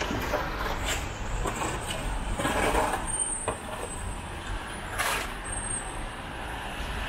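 City street traffic on a wet road: a steady low rumble of passing vehicles, with a short hiss about five seconds in.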